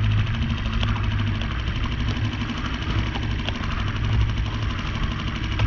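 Small Mercury outboard motor running steadily at trolling speed: a continuous low drone, with a few light clicks over it.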